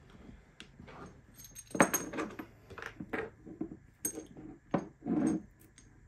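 Metal parts of a disassembled CX5 lock cylinder being handled: irregular small metallic clicks and clinks, the loudest about two seconds in, with a longer, duller noise just after five seconds.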